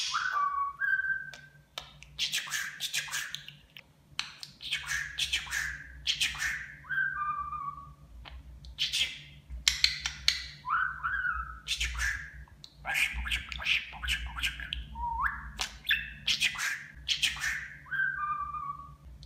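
A talking budgerigar chattering in short raspy bursts of rapid clicks, each ending in a brief whistled note that glides up or down. The bursts repeat every two to three seconds, in the way a budgie repeats its mimicked phrases.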